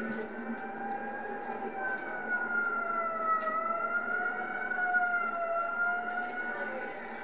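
Siren wailing in a long, slow glide, dipping in pitch about halfway through and rising again.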